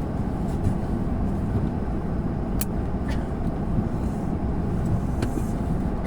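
Steady low rumble of airliner cabin noise, with a few short sharp clicks about two and a half, three and five seconds in.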